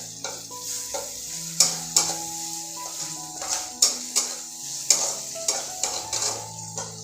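Chopped onion frying in hot oil in a kadhai, sizzling, while a spatula stirs it, knocking and scraping against the pan about every half second. Soft background music plays underneath.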